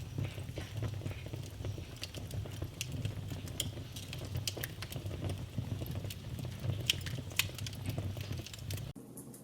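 Open wood fire crackling, with scattered sharp pops over a low, steady rumble of flames. Just before the end the sound cuts abruptly to a quieter, sparser crackle.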